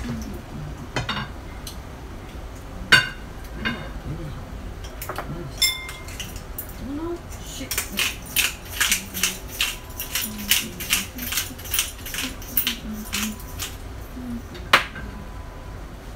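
Cooking utensils clicking and clinking against a frying pan as food is stirred and tossed. A quick run of clicks, about four a second, fills the middle, with single sharp knocks about three seconds in and near the end.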